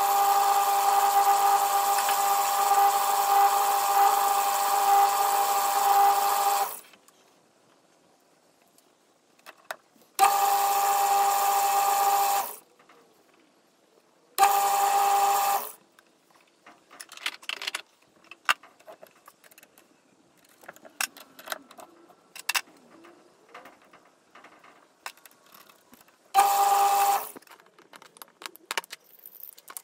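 Small metal lathe running and drilling a plastic bar, a steady pitched machine tone with overtones, started and stopped four times: one long run of about seven seconds, then three short runs of one to two seconds. Between the runs there are light clicks and knocks of tools and parts being handled.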